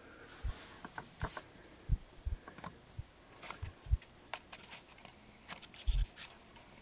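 Sparse light clicks and a few dull knocks from a small Keihin carburetor and its float pivot pin being handled and checked on a work surface.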